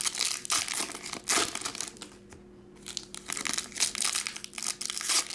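A foil trading-card pack wrapper being torn open and crinkled by hand. It crackles in two spells with a quieter pause of about a second between them.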